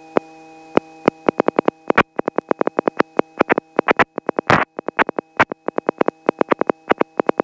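Headset intercom line crackling: a run of sharp, irregular clicks, coming faster toward the middle, over a steady electrical hum. It fits the intercom audio cutting out.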